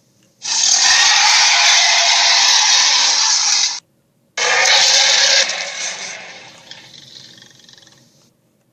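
Two harsh, hiss-like dinosaur calls made as Tarbosaurus sound effects, without a clear pitch. The first lasts about three seconds and cuts off suddenly; the second starts loud and fades out over about three seconds.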